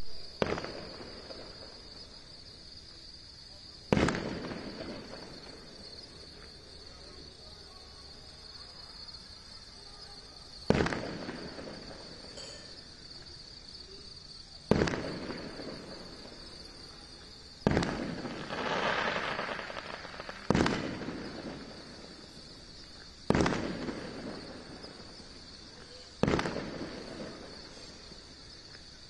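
Aerial firework shells bursting one at a time, about eight sharp bangs spaced three to four seconds apart, each echoing and dying away. Partway through, one burst is followed by about two seconds of crackling.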